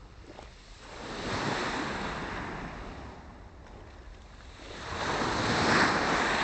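Small Black Sea waves breaking and washing up the shore twice, each one swelling and then fading, the second louder near the end.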